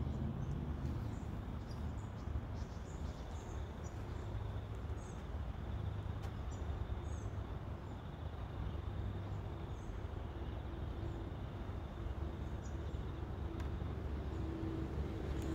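Outdoor ambience: a steady low rumble with short high bird chirps every second or two, and a faint steady hum coming in near the end.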